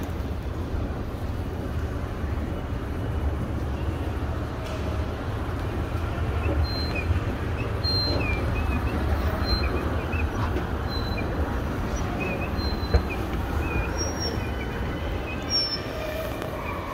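Escalator running with a steady low rumble. A series of short, high chirping squeaks comes about once a second through the middle of the ride.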